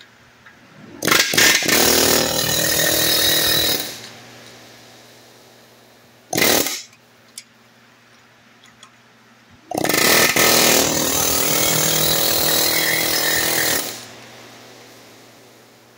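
Pneumatic air hammer with a long chisel bit hammering rapidly against a rubber bushing clamped in a vise, to drive the bushing out. It runs in bursts: a short one about a second in, a run of about two and a half seconds, a brief burst around six seconds in, and a longer run of about four seconds from about ten seconds in.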